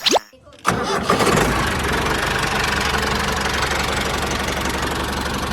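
A brief pitch-gliding sound at the very start, then a short gap. An engine then starts abruptly less than a second in and runs on steadily.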